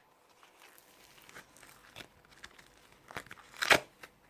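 Slime packaging crinkling and tearing as it is opened by hand: scattered faint crackles, then a louder short rustle about three and a half seconds in.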